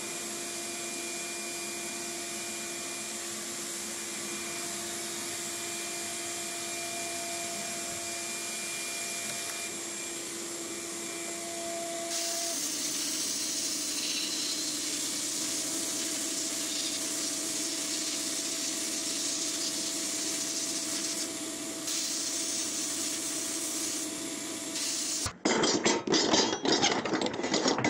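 Sandblast cabinet gun blasting abrasive onto the parts of an old toy tractor: a steady hiss with a steady hum under it, growing louder about twelve seconds in. Near the end it gives way to a different sound, a quick run of sharp pulses.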